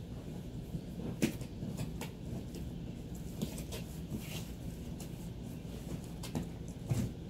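Cardboard box being knocked about and torn by a husky puppy: scattered short thumps and scraping rustles, a few seconds apart.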